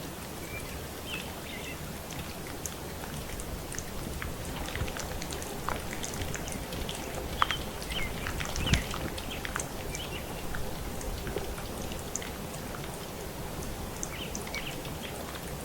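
Steady rain falling, with many scattered raindrop ticks and a few louder taps about seven to nine seconds in.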